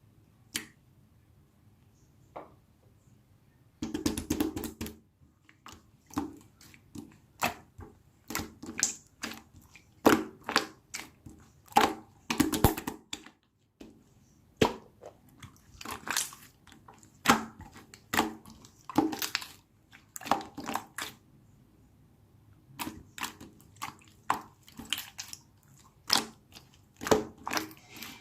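Irregular bursts of close-up squishing and crackling handling sounds, with clusters of sharp clicks, beginning about four seconds in after a near-quiet start.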